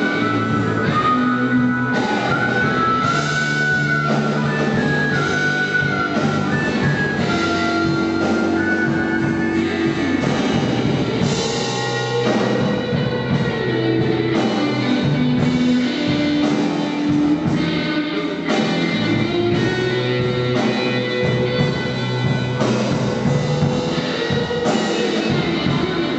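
Rock music with guitar and drum kit playing steadily.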